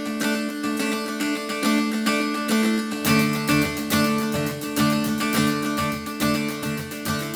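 Background music: a strummed guitar tune with a steady beat, a bass line coming in about three seconds in.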